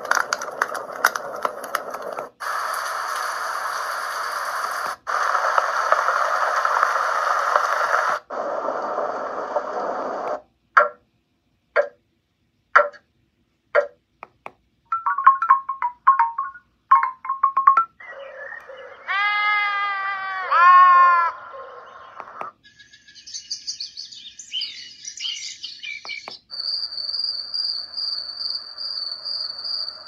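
Famisym white noise sound machine playing its built-in sounds one after another, each cut off after a few seconds as the next is selected. First several different hiss-like white noise tracks, then sparse clicks, then bird-like chirps and curving chirping calls, then a steady high tone over hiss.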